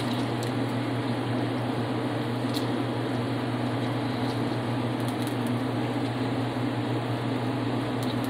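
Steady hum and hiss of a gas stove with a pan of white wine, garlic and oregano simmering on it.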